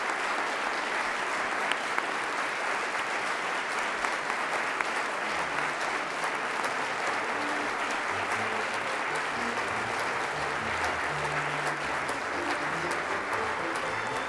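A standing ovation: a roomful of people applauding steadily.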